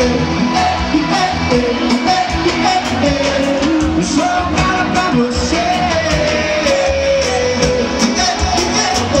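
Amplified live band music with a singer's melody over a steady beat, played over a large outdoor sound system.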